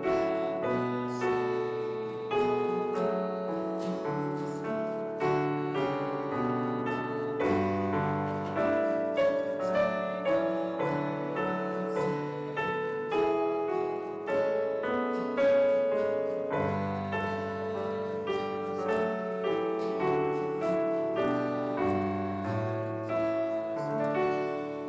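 Piano playing an instrumental piece: struck chords ringing and fading over a bass line that moves every second or two.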